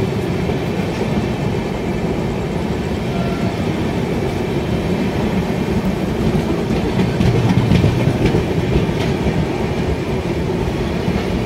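Rumble and wheel clatter of the Kashi Mahakal Express's coaches running close alongside on the adjacent track, with a few sharper clacks about seven to nine seconds in.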